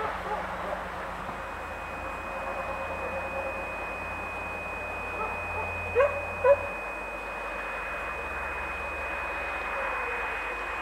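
Level crossing warning signal sounding one steady high tone while the barrier booms rise, starting about a second in and cutting off at the end. Two short, loud chirps come about six seconds in.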